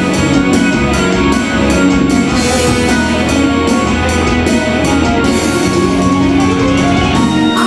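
Live rock band playing, with electric guitars, bass guitar and a drum kit keeping a steady beat.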